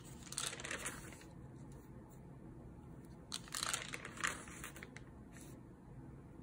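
Paper pages of a spiral-bound notebook being turned by hand: two papery rustles, one about half a second in and a longer one about three and a half seconds in.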